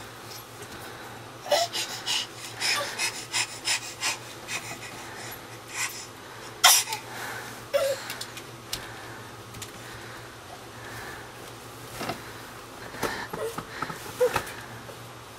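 Wooden crib rattling and knocking as a toddler climbs up its side rail, with a sharp knock about seven seconds in, over his quick, effortful breathing.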